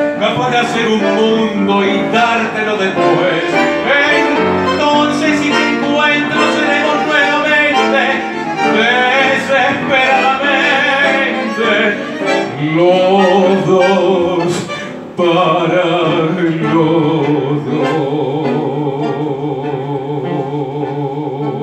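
A male tango singer sings with bandoneon accompaniment. About fifteen seconds in the music drops briefly, then a long note with vibrato is held.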